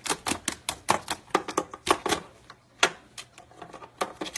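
Rapid, irregular sharp clicks and taps, several a second in uneven clusters, from a parrot's beak pecking and chewing at something hard.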